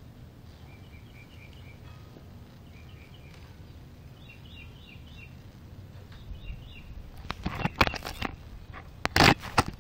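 Faint bird chirps in four short clusters over a steady outdoor background noise. In the last few seconds, loud knocks and rubbing as a hand grips and moves the phone over its microphone.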